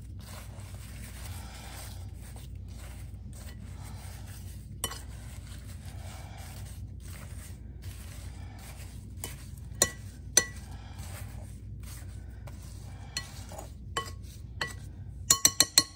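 A metal spoon stirring and tossing sugared, sliced strawberries in a glass bowl, a soft wet rustle broken by occasional clinks of the spoon against the glass. There is a quick run of clinks near the end.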